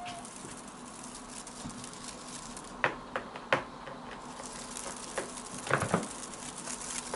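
Blue British Shorthair cat chattering: a few short, sharp clicks, two or three close together about three seconds in and another cluster around six seconds.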